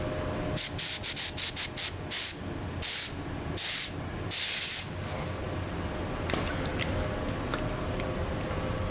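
Compressed-air paint spray gun triggered in about ten short hissing bursts, the last few longer, up to about half a second, ending about halfway through. It is dusting blending solvent over the edge of fresh clearcoat with the fluid feed turned almost off. A steady background hum runs underneath.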